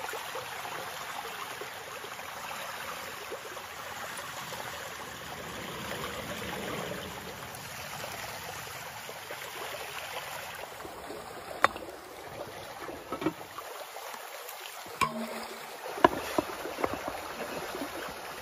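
A stream flowing steadily. In the last third come a few sharp knocks.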